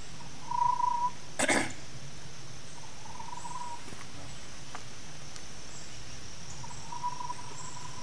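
A person whistling an imitation of an eastern screech owl's trill: three short trills held at one steady pitch, about a second in, about three seconds in, and near the end, used to call in songbirds that react to an owl. A short, sharp noisy burst comes just after the first trill and is the loudest sound.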